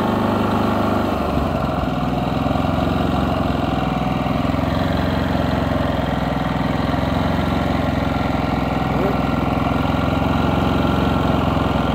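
Cummins Onan P4500i inverter generator engine idling with no load after a remote start. About a second in its engine note shifts, then holds steady as it settles into eco-mode idle.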